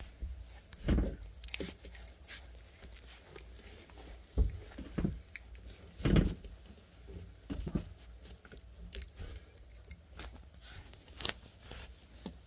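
Young Rottweiler puppies play-biting and scuffling with one another, with irregular soft thumps and small scratchy clicks, the loudest thumps about a second in and again around four to six seconds in.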